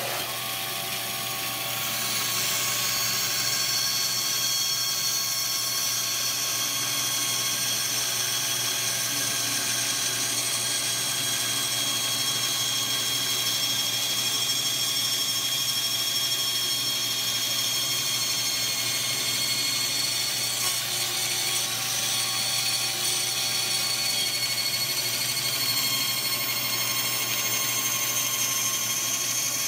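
A shop machine's electric motor running steadily with a high whine over a low hum, starting abruptly just before and not changing in pitch.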